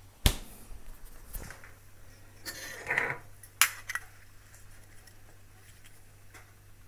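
A refrigerator door pushed shut with a sharp knock about a quarter second in, followed by a few lighter knocks and clicks and a brief rustle of handling.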